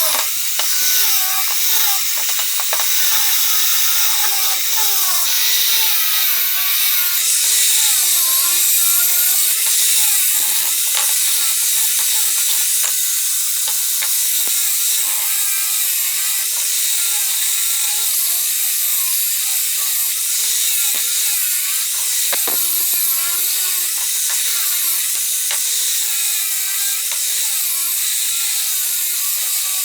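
Hand tool rubbing back and forth across wood in steady strokes, about one a second, with a few sharp knocks along the way, typical of sanding or scraping an old tabletop.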